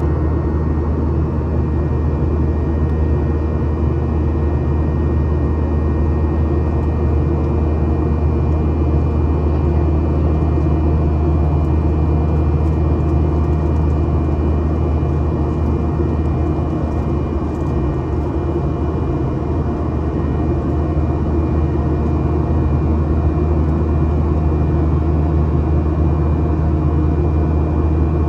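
Cabin noise inside a Boeing 737-900ER climbing after takeoff: the CFM56-7B turbofans and the rushing air make a steady low drone, with a few faint, steady whining tones above it.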